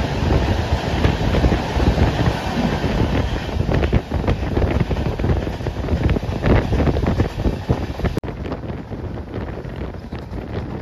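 Mangla Lakshadweep SF Express passenger train running at speed: rumble and clatter of the wheels on the rails under heavy wind buffeting on the microphone. It gets a little quieter about eight seconds in.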